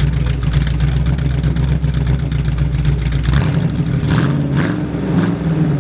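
1970 AMC AMX's V8 engine running, newly revived after eleven years unstarted. About three and a half seconds in its deep, steady note changes as the engine speed shifts.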